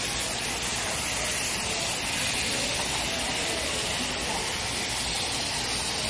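Water jets spraying from nozzles in a pool wall, a steady hiss, with voices of a crowd faintly behind.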